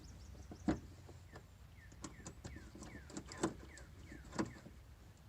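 Screws being tightened into the splash guard at a car's wheel well: a few sharp clicks and knocks, with no power-tool whine. Faint short chirps of small birds sound throughout behind them.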